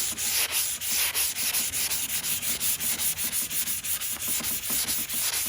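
400-grit sandpaper rubbed by hand over chalk-painted wood in quick back-and-forth strokes, a steady hiss pulsing about four to five times a second. This is the fine final pass that smooths the paint to a glass-like finish.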